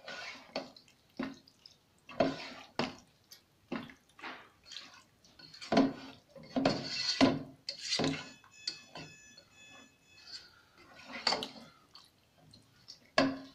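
Slotted spatula stirring thick, creamy pasta sauce in a nonstick pan: irregular wet squelches and scrapes against the pan as a slice of cheese is worked into the sauce.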